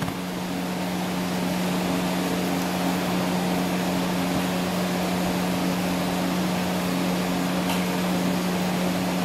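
Steady machine hum, like a running fan or air conditioner, with a constant low droning tone under an even whir. There is one faint tick about three-quarters of the way through.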